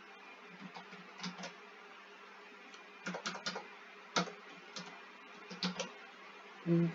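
Computer keyboard keystrokes in short, scattered clusters with pauses between them, as code is typed and edited.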